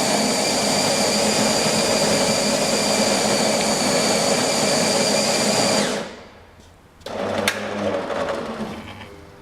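An automatic coffee maker's built-in grinder grinds coffee beans with a loud, steady whir, then cuts off about six seconds in. A quieter motor hum with a couple of clicks follows as the machine moves on to brewing.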